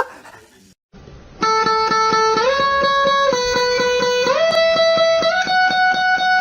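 Guitar music starting about a second and a half in: a held note that steps up through a few pitches over a fast, even plucked rhythm.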